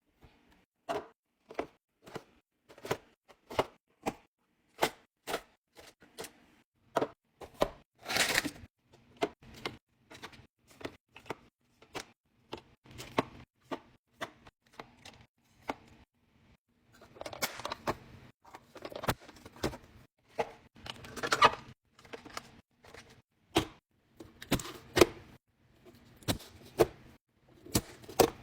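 Containers and packaged food being set into a fridge: a steady run of separate clacks and knocks, one or two a second, with packaging rustling in a busier stretch past the middle.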